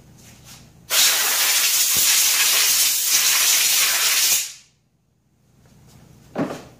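Compressed air from a shop air hose hissing in one sustained blast of about three and a half seconds, blowing dirt out of a small-engine paper air filter. It cuts off sharply.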